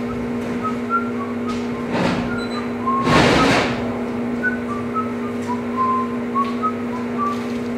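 Short high whistled notes in a loose, wandering tune over a steady low hum. Paper rustles twice, about two and three seconds in, the second time louder, as the magazine held open is handled.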